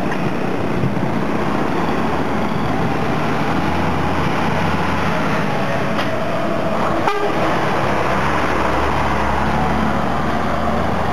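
Busy street noise: a motor vehicle's engine running close by with a steady low rumble, car horns tooting briefly, and one sharp knock about seven seconds in.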